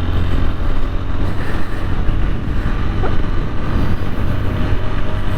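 TVS Apache 160 4V motorcycle under way, its single-cylinder engine running steadily beneath heavy wind noise on the helmet-mounted microphone.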